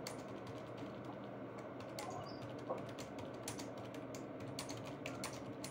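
Typing on a computer keyboard: rapid, irregular key clicks, faint and thin as heard over a video call.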